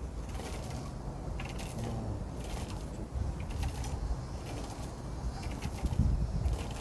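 Light metallic jingling and clinking, coming in short bursts about once a second, over wind rumbling on the microphone.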